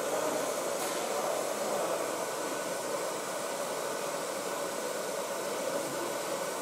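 TIG welding arc on stainless steel at about 60 amps, a steady, even hiss.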